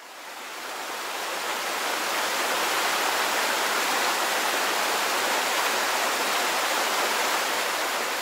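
Waterfall: a steady rush of falling water, fading in over the first couple of seconds.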